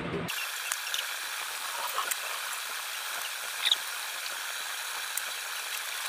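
Spoon and hands working a wet ground-meat and cabbage mixture in a stainless steel bowl: soft scraping and squishing with scattered light clicks of the spoon against the bowl, over a steady hiss.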